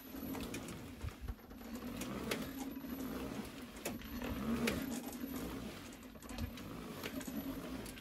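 Kingsong S22 electric unicycle's hub motor humming as it rolls forward and backward, the low hum swelling and wavering in pitch with the moves, with a few light clicks. No control-board noise.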